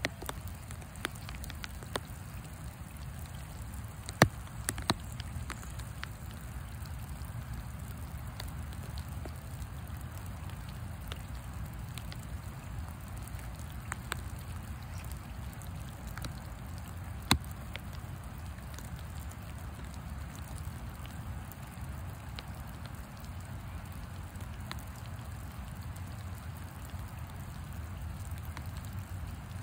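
Steady rain falling, with scattered sharp ticks of drops striking close by, two of them louder than the rest, over a low rumble.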